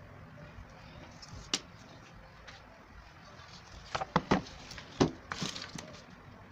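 Sheet of card paper being handled, with a few sharp knocks and taps about four to five seconds in as a wooden cutting board is set down beneath it.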